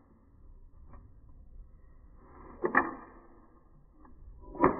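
Two sharp metallic clacks from a Glock 43X pistol being worked by hand, about two seconds apart, each with a short sliding scrape just before it and a brief ring after it; the second is the louder.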